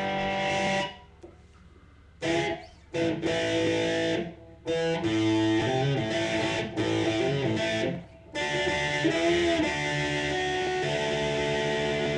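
Electric guitar, a rosewood Telecaster, played through a Line 6 amp on a distorted metal setting: riffs and chords in short phrases with brief pauses, and bent notes around the middle.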